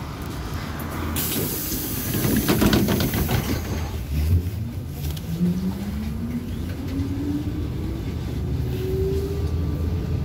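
Compressed air hissing out of the ZiU-682G trolleybus's pneumatic door drive as the folding doors close, with a few knocks of the door leaves. Then the DK-213 traction motor starts a steadily rising whine as the trolleybus pulls away from the stop.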